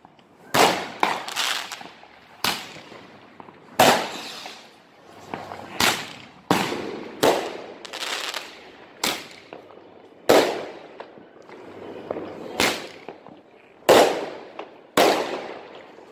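Fireworks bursting overhead: about a dozen sharp bangs, irregularly spaced, each trailing off in an echo.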